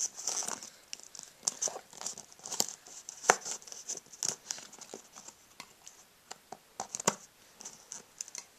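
Cardboard jigsaw puzzle pieces handled by a toddler's hands, sliding and tapping on a foam play mat: irregular light scrapes and clicks, the sharpest about three seconds in.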